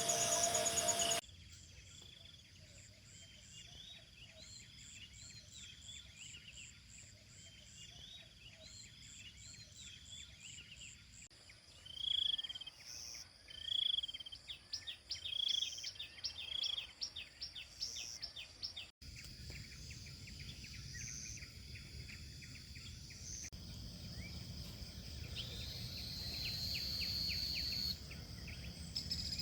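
Tropical outdoor ambience of insects and birds. There are many small high chirps, and about halfway through a bird gives four louder calls in a row, roughly a second and a half apart. Near the end a steady high insect buzz sets in. The first second is the tail of background music.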